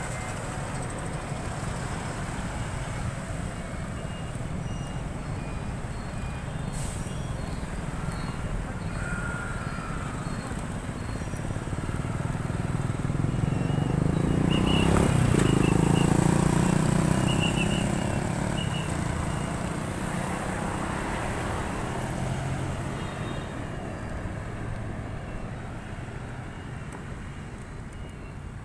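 Road traffic at a junction: car and motorbike engines running with tyre and road noise. The sound swells to its loudest about halfway as a motor scooter passes close by, its engine note dropping in pitch, then fades.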